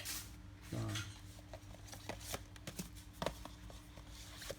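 Scattered light clicks and taps of small boxes and packaging being handled, with a brief low murmur of a voice about a second in.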